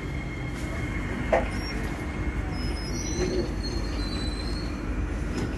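Steady rumble heard from inside an SMRT C151B metro train car as it slows into the platform. A single click comes about a second in, and a thin high squeal from the wheels and brakes runs for a couple of seconds around the middle as the train draws to a stop.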